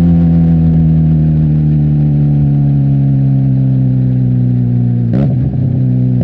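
Benelli TNT 300's parallel-twin engine running through an Austin Racing aftermarket exhaust on the road, its note sinking slowly as the bike slows. About five seconds in there is a brief break in the note, a gear change, and then it runs on steady.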